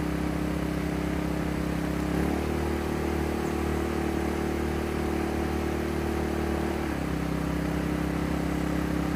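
Sportsman 1000-watt inverter generator engine running under the load of a 150-watt fan. Its speed steps up about two seconds in and drops back near seven seconds as economy mode is switched off and on; economy mode slows the engine to just the RPM the load needs.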